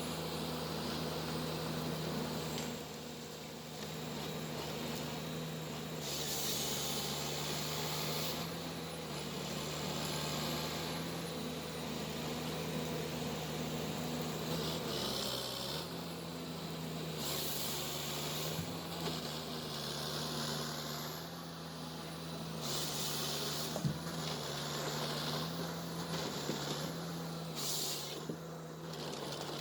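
Ponsse forestry machine's diesel engine running steadily, its pitch stepping up and down, with repeated short hissing bursts every few seconds and a sharp click near the end.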